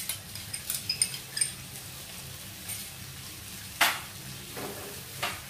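Onions, capsicum and sauces sizzling in a hot non-stick wok on a high flame, with a few light clinks of a spoon against a small glass bowl in the first second and a half as ketchup is scraped in, and one sharper knock near the four-second mark.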